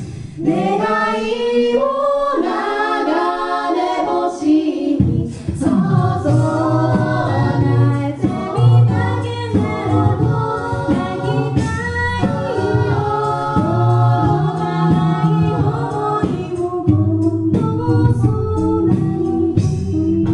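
Six-voice mixed a cappella group singing into microphones, with no instruments. Upper voices sing in harmony at first, and a low bass part comes in about five seconds in.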